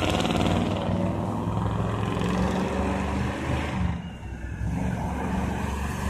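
School-bus monster truck's engine running as it drives around, a steady low drone that dips briefly about four seconds in.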